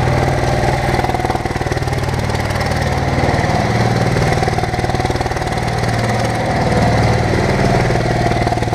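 Bobcat M371 skid-steer loader's diesel engine running steadily under way, swelling a little about four seconds in and again near seven seconds as it is driven.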